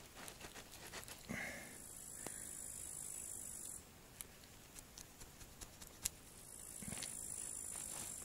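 Insects chirring high and steady in the grass, in two spells of about two and a half seconds each, over small clicks and scrapes as a titanium skewer is worked through frozen pork ribs, with one sharper click a little after six seconds.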